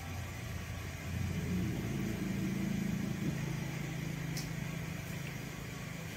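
A low motor-like hum that steps up in pitch and grows louder about a second in, with a single faint tick about four seconds in.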